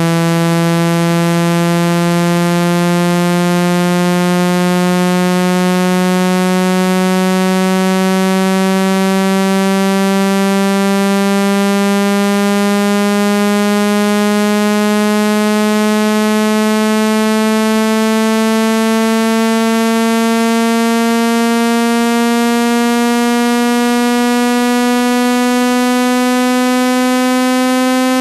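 Synthesized buzzy tone of a speaker-cleaning water-eject sound, held at a steady loud level while its pitch glides slowly and smoothly upward. The low sweeping tone is meant to vibrate water out of a phone speaker.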